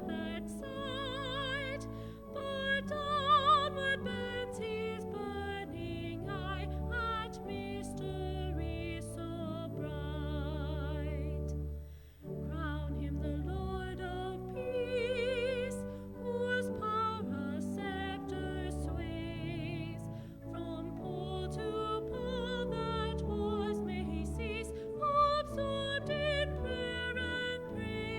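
Hymn music: a singer with strong vibrato over sustained keyboard chords, with a brief break about twelve seconds in.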